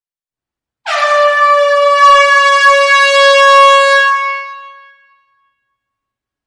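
A single long, loud horn blast on one steady pitch, lasting about four seconds and fading out toward the end.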